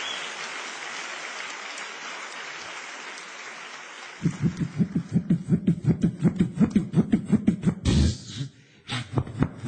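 Audience applause dying away, then about four seconds in a beatboxer starts into a microphone with a fast, even run of low bass pulses, about five a second. A heavier low boom comes near the end, followed by a few sharp clicks.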